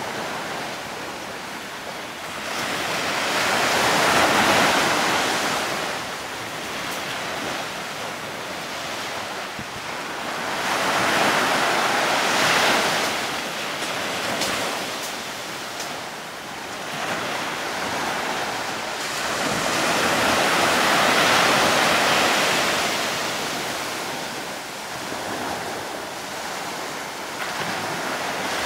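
Sea waves and wind on the microphone: a steady rushing noise that swells and fades in slow surges about every eight seconds.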